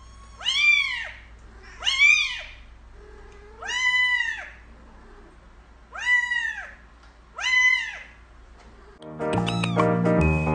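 A cat meowing five times, each meow rising and then falling in pitch. Background music starts near the end.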